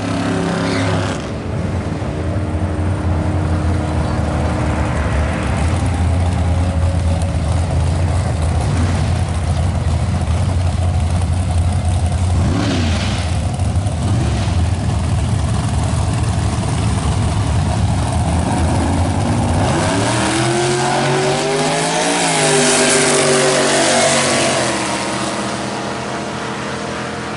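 Camaro drag car's engine rumbling heavily at the starting line, then launching about 20 seconds in on a full-throttle pass: the pitch climbs, dips once and climbs again, then fades as the car runs away down the track.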